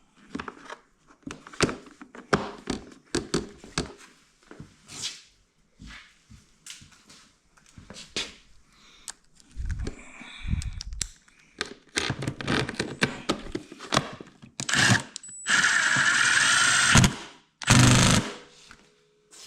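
Milwaukee cordless impact wrench on its lowest power setting. It fires in a few short bursts, then hammers in one longer run of about two seconds with a high whine near the end. Before it comes a series of clicks and knocks from parts being handled and fitted.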